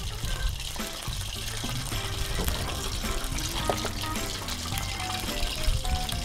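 Pieces of skate in rice-flour batter deep-frying in hot peanut oil in an iron pan, a steady sizzle full of small crackles, with background music under it.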